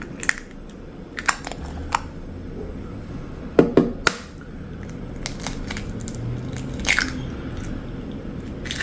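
Scattered crunches, clicks and taps of eggshell being cracked and a small plastic egg cooker being handled, with the loudest knocks about three and a half and four seconds in.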